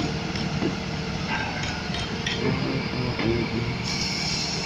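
Heavy diesel engine of the rough-terrain crane and its truck running steadily, with a few light metallic clicks.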